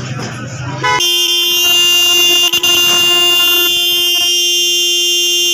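Japanese Denso low-tone electric disc horn sounding a steady, loud blast that starts about a second in and holds for nearly five seconds, cut out twice very briefly near the middle. It is being test-sounded after its diaphragm plate was replaced and adjusted.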